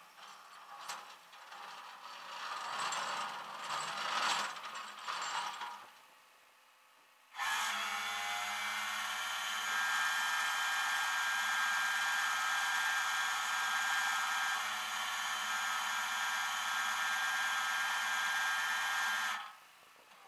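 Metal clattering and scraping of a tow chain and winch cable being hooked up. About seven seconds in, a flatbed tow truck's winch starts with a steady hum and whine, reels in the slack cable for about twelve seconds, and cuts off abruptly.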